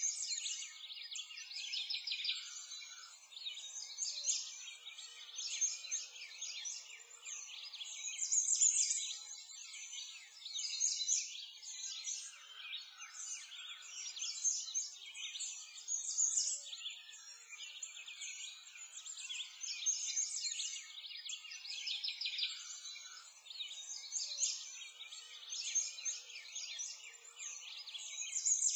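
Many small birds chirping and twittering at once, a dense, continuous birdsong chorus that swells and fades every second or two.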